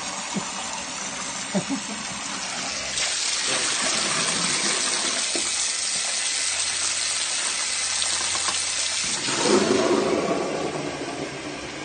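Water poured from a bucket into a drain inspection chamber, splashing and rushing steadily from about three seconds in, then a louder gush near the end, to flush through a drain that had been blocked with wet wipes and cooking fat.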